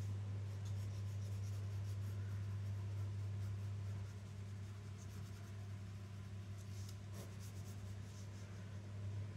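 Pencil scratching on paper in short sketching strokes, over a steady low hum.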